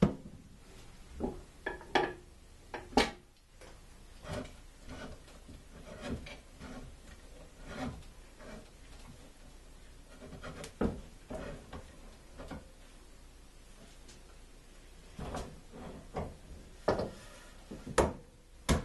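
Heavy-duty steel tie rod and its threaded tie rod ends being handled on a wooden workbench as the ends are screwed in and the bar is shifted into line: irregular rubbing and scraping with scattered clicks and knocks. The sharpest knocks come about three seconds in and again near the end.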